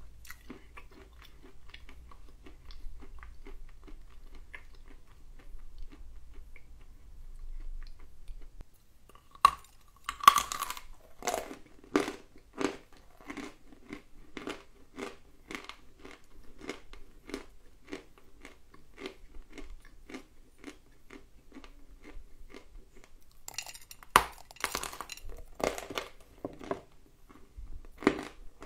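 Lumps of dry edible clay being bitten and chewed. Soft chewing at first, then a loud crunching bite about ten seconds in, followed by crunching chews at about two a second, and another sharp crunching bite near the end.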